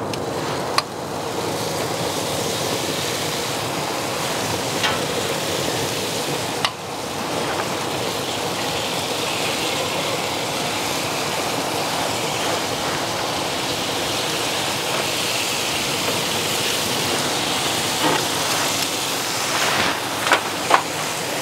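Steady sizzling hiss of sauce-basted pork spare ribs and rib tips cooking on a hot smoker grill grate, with a few light taps as the ribs are brushed.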